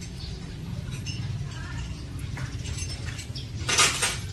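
Brief hiss of compressed air and water spurting from a Hino Profia truck's air-tank drain valve as it is pulled open, about three and a half seconds in, over a steady low hum. The valve is opened to blow out the water that has collected in the air tank.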